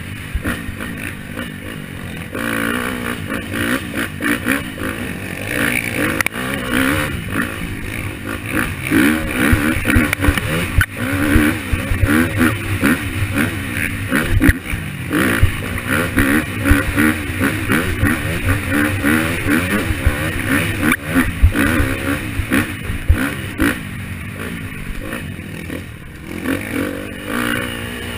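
KTM 250 dirt bike engine heard up close from the bike itself, revving up and down repeatedly as the throttle is worked along a rough trail, with knocks and rattles from the bike over the bumps.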